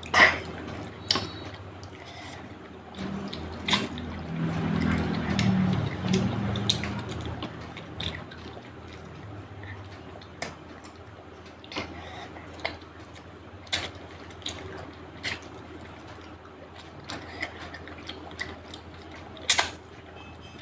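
Close-up eating sounds of chicken curry and rice: wet chewing and lip smacking with scattered sharp mouth clicks, and a louder, lower-pitched stretch a few seconds in.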